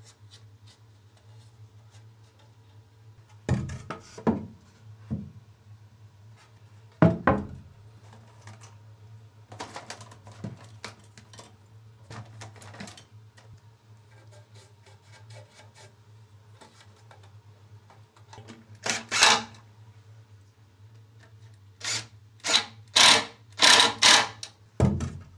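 Knocks, taps and clatter of hand tools and timber being handled, with a quick run of sharp knocks near the end, over a low steady hum.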